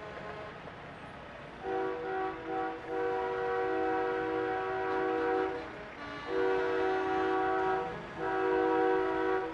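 A semi truck's train-style multi-chime air horn blowing a steady chord: two short toots, then three long blasts, over the low sound of the parading trucks' diesel engines.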